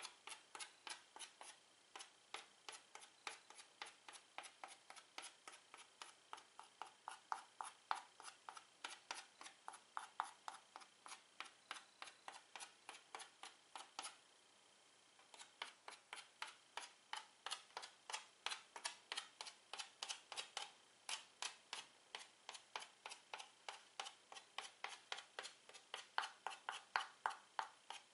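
Stick of chalk tapping dots onto a chalkboard: a quick run of sharp ticks, about four or five a second, with a pause of about a second midway.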